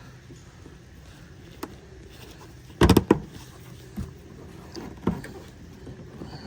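Plastic push clips being pressed into a car's plastic trim cover: a few scattered clicks and knocks, with a quick run of louder knocks about three seconds in.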